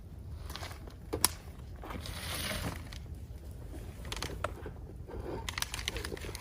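Wood bonfire crackling, with scattered sharp pops, the loudest about a second in, and a brief rustling hiss about two seconds in.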